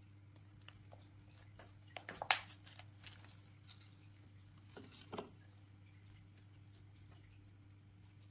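Hands pulling a root ball of loose potting soil out of a thin plastic nursery pot and crumbling the soil: a crackly rustle with a sharp burst about two seconds in and a smaller one about five seconds in, over a low steady hum.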